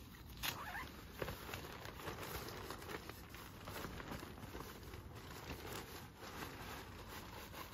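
Faint rustling and crinkling of nylon tent fabric as a loose tent panel is lifted and shaken out, with a few small clicks.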